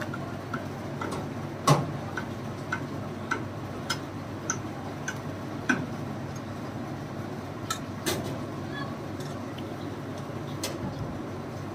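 Fork and knife clinking sharply against an iron karahi a few times while cutting into roast pigeon, over a steady ticking a little under twice a second and a low steady hum.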